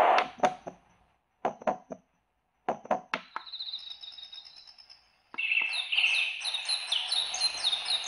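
Conair SU9K sound machine's small speaker playing its built-in nature sounds as the SOUND button steps through them: three double heartbeat thumps, then a faint pulsing night-insect trill about three seconds in, then forest birdsong chirping from about five seconds in.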